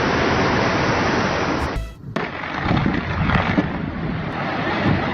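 Rushing floodwater: a steady wash of water noise, broken by a sudden short cut about two seconds in, after which similar water and wind noise carries on.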